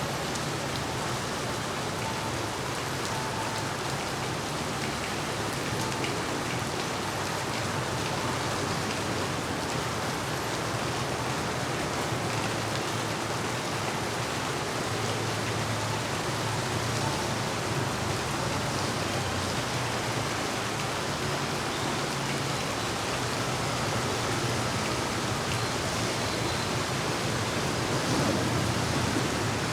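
Heavy rain falling steadily, an even dense hiss, with a low steady hum beneath it.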